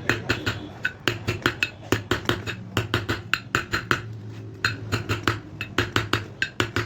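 Hammer taps on metal, many in quick irregular succession, driving a new ball bearing into a ceiling fan's housing. The worn bearing seat has been built up with weld, so the bearing is a tight fit that has to be knocked home.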